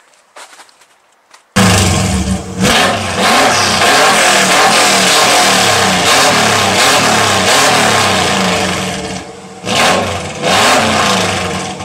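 Turbocharged Subaru EJ22 flat-four running loud and being revved up and down repeatedly, on its first run after its turbo was relocated. It comes in suddenly after a quiet second and a half and dips briefly twice.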